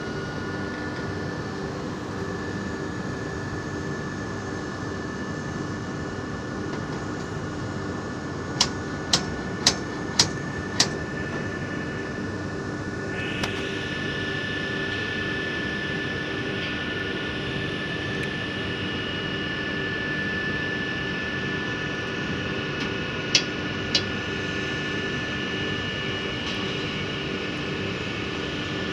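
Steady mechanical drone of industrial plant, such as factory ventilation machinery, with several constant whining tones; a higher whine joins a little before halfway. Five sharp clicks about half a second apart come about a third of the way in, and two more about four-fifths in.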